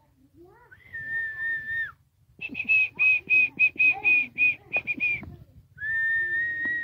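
A person whistling: a long held note that drops at the end, then a run of about a dozen short whistles at a slightly higher pitch, roughly four a second, then another long held note.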